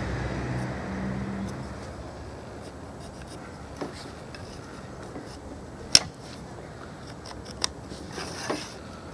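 Steel rule, square and pencil handled on timber boards at a workbench: a few light taps and clicks, the sharpest about six seconds in, and a short scratch of marking near the end. A low engine hum from a passing vehicle fades out in the first second or two.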